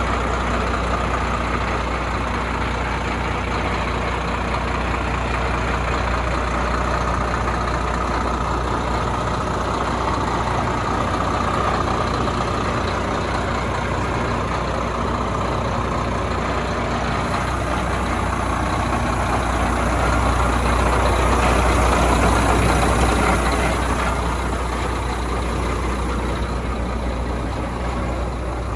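Renault Lander 460 truck's six-cylinder diesel engine idling steadily. It grows somewhat louder for a few seconds about twenty seconds in, then settles back.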